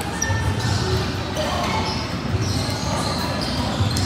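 Indoor volleyball play on a gym court: the ball being hit and bouncing, with short high squeaks of shoes on the floor scattered throughout.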